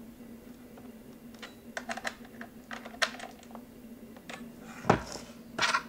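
Light, irregular metal clicks and clinks of a socket wrench working the bar-cover nuts on an ECHO CS-353ES chainsaw as the cover is tightened down, with one louder knock about five seconds in.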